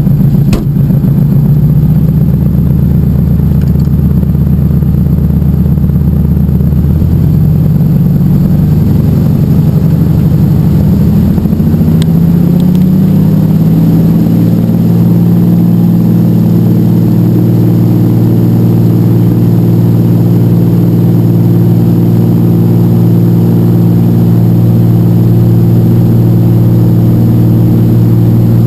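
De Havilland Canada DHC-2 Beaver's nine-cylinder Pratt & Whitney R-985 radial engine and propeller, heard from inside the cockpit, running loud and steady. About a quarter of the way in it climbs in pitch as the throttle is pushed forward for takeoff, then holds a higher, steady drone at takeoff power.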